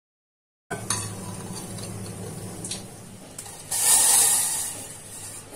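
Silence at first, then a low steady hum with a few clinks of a steel vessel. About three and a half seconds in, milk being poured into a stainless steel pan splashes loudly for about a second, then keeps running more quietly.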